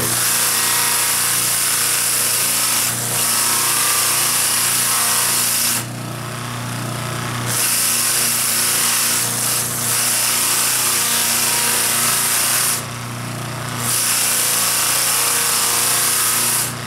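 An electric bench motor runs with a steady hum while a carved wooden figure is held against its spinning sandpaper flap wheel, giving a loud rasping hiss of sanding. The hiss stops twice, about six seconds in and again near thirteen seconds, when the wood is lifted off the wheel, and the motor hum carries on through both breaks.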